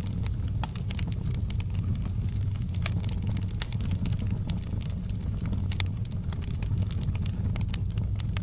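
Wood fire burning with a steady low rumble and frequent, irregular sharp crackles and pops.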